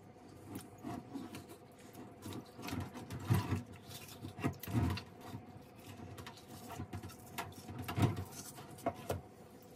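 Hands working a wet fencing mask in a stainless-steel sink of water to take its strap off: irregular knocks, clicks and small sloshes, with a few louder thumps about three, four and a half and eight seconds in.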